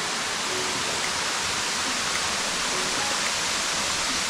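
A steep waterfall cascade rushing with a steady, even roar of falling water.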